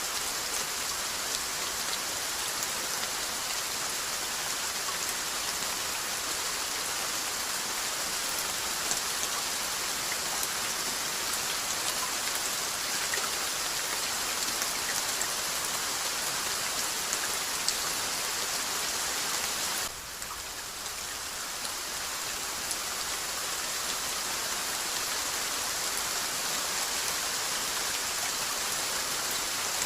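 Steady rainfall with scattered individual drop ticks. About two-thirds of the way through it suddenly drops quieter, then builds back up over a couple of seconds.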